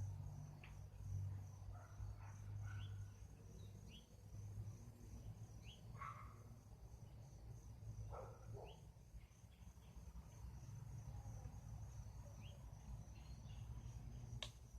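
Faint outdoor ambience: crickets droning steadily in a fast pulsing rhythm, with short bird chirps scattered through and a low rumble underneath. A single sharp click comes near the end.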